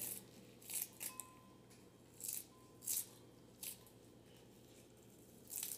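Kitchen shears snipping through fresh chives: about six short, sharp cuts at uneven intervals, roughly a second apart.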